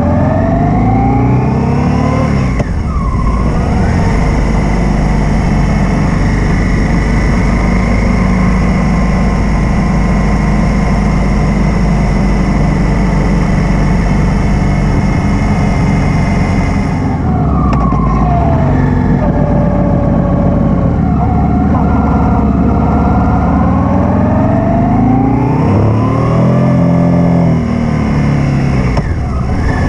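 Honda XRV750 Africa Twin's V-twin engine under way, with wind rushing past the camera mount. The pitch climbs as it accelerates, drops sharply at a gear change about three seconds in, holds steady, then falls and climbs again near eighteen seconds and shifts once more near the end.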